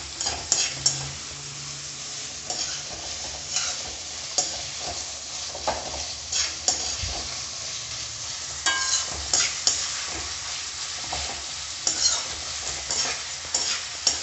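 Sliced onions sizzling in hot oil in a metal kadai on high flame, stirred with a metal spoon that scrapes and clinks against the pan at irregular intervals.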